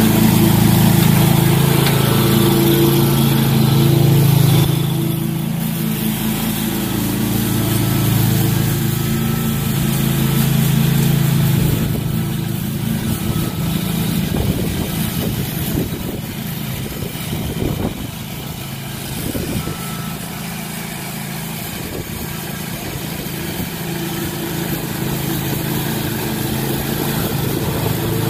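Commercial walk-behind lawn mower's engine running steadily while cutting grass. It grows fainter from about twelve seconds in as the mower moves away, then gets louder again near the end as it comes back.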